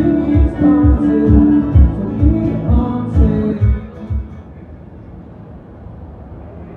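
Live acoustic guitar and male singing with a steady low beat. It cuts off about four seconds in, leaving a quiet, steady background hum.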